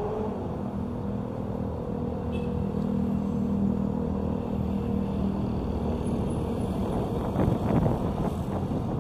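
A motor vehicle engine running close by, holding a steady pitch after a short rise, with rougher, louder street noise in the last couple of seconds.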